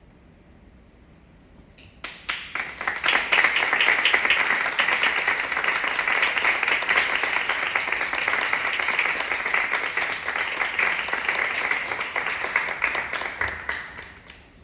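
Audience applauding. The clapping starts about two seconds in, swells quickly to a dense patter of many hands, and dies away near the end.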